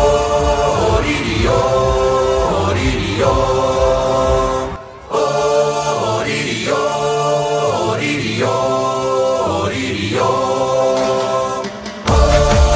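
Male vocal group singing in close harmony through a PA, with little or no accompaniment and a short break about five seconds in. A full band comes in loudly just before the end.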